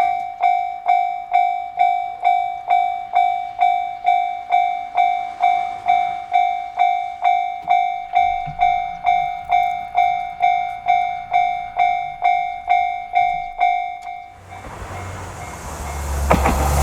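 Japanese level crossing warning bell ringing, an even clanging about two and a half strikes a second, which stops about fourteen seconds in. A diesel train on the Koumi Line is then heard arriving, its rumble growing loud near the end.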